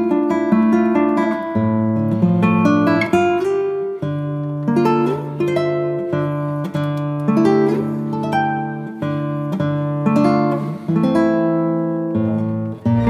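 Background music: acoustic guitar plucking and strumming a steady sequence of chords.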